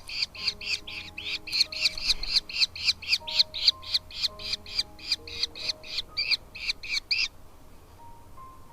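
Falcon chicks giving rapid, repeated begging calls in the nest, about five a second, while being fed. They stop abruptly about seven seconds in. Faint background music with held notes plays underneath.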